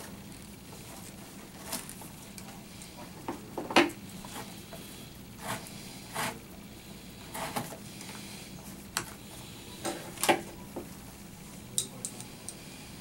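Rawhide laces being worked and pulled out of a baseball glove's web: irregular short scrapes and clicks every second or two, the loudest about four seconds in and again about ten seconds in.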